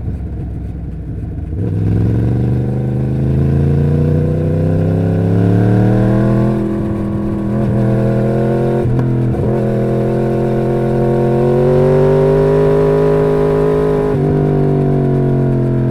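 2011 Yamaha R1's crossplane inline-four engine on its stock exhaust, its pitch climbing slowly under throttle, broken briefly several times, then falling off near the end.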